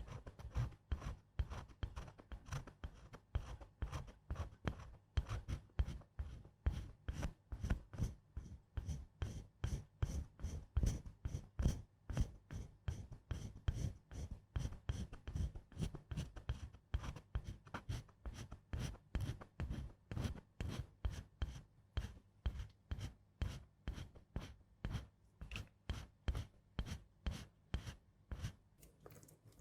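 Rhythmic scratchy strokes right at the microphone, about three a second in an even pattern: an ASMR trigger made with the makeup-play actions.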